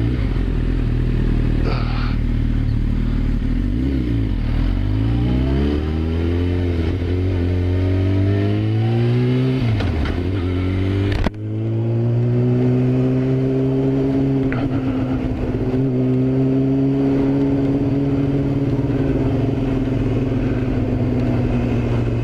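Yamaha YZF-R6 sportbike's inline-four engine pulling away and accelerating. Its pitch climbs and drops several times over the first half, then holds a steadier note while cruising.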